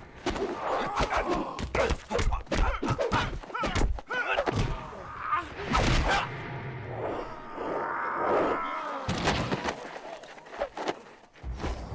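Kung fu film fight sound effects: a rapid run of dubbed punch and kick impacts, thuds and whooshes, with the fighters' cries between them.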